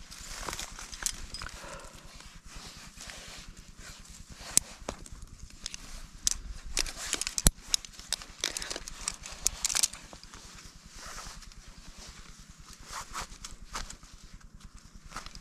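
A climber moving on a limestone rock face: irregular clicks and knocks from climbing gear and from hands and shoes on rock, with rustling of rope and clothing in between. One sharp click about seven and a half seconds in is the loudest.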